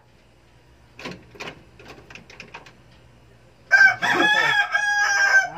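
A rooster crows once, loud and drawn out for nearly two seconds at a steady pitch, after a quick run of short clucks about a second in.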